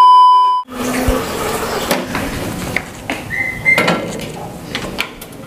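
A loud, steady test-tone beep, the kind played over TV colour bars, lasting under a second. It is followed by metal cookware knocking and clinking on the stove, with a brief high tone a little past the middle.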